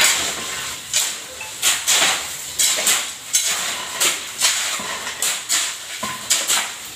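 Steel shovels scraping and scooping through a heap of cement-and-gravel concrete mix on a concrete floor, turning it by hand, in repeated gritty strokes about one to two a second.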